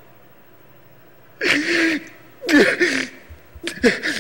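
A young man's voice imitating crying: after a short quiet, three loud, breathy sobs, each falling in pitch.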